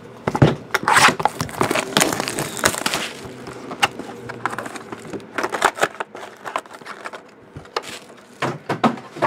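Crinkling and rustling of plastic shrink wrap with sharp clicks and knocks of cardboard trading-card boxes being handled and set down. It is busiest in the first three seconds, then turns to scattered clicks and rustles.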